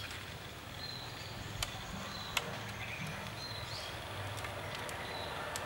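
Outdoor ambience of insects with short high chirps over a low steady hum, and two sharp clicks about a second and a half and two and a half seconds in.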